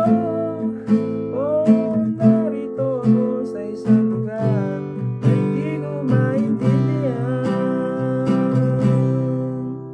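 Acoustic guitar strummed in a steady rhythm with a capo on, full chords ringing. Near the end the strumming stops and the last chord fades out.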